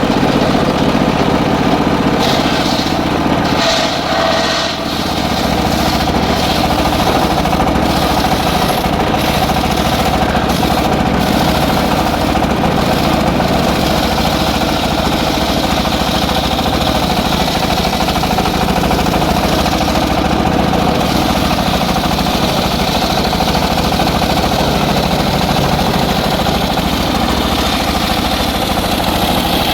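Engine-driven circular sawmill running steadily, with a brief dip in its sound about four seconds in.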